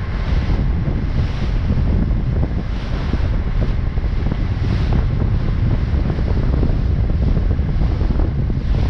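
Wind buffeting the microphone over the steady rush of water along the hull of a harbor pilot boat under way, with brief gusts every second or two.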